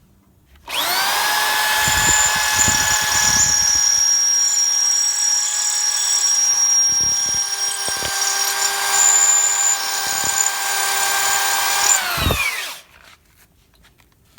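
Electric drill drilling out the rivets that hold an old cross member, its motor running at a steady pitch for about twelve seconds, then winding down.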